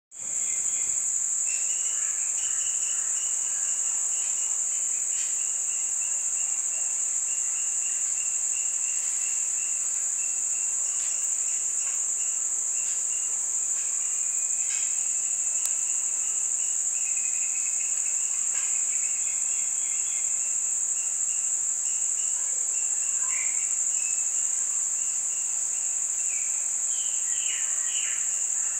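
Insects droning: one steady, high-pitched tone without a break, with a second, lower insect trill coming and going beneath it.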